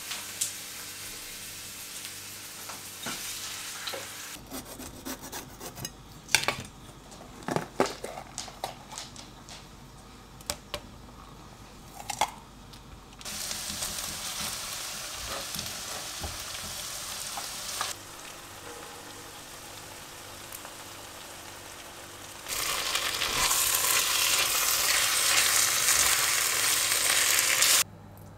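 Meat and rice sizzling in a frying pan while a wooden spoon stirs them, with scattered clinks and knocks of kitchen utensils. The sizzle comes in stretches, is loudest in the last few seconds, and cuts off abruptly just before the end.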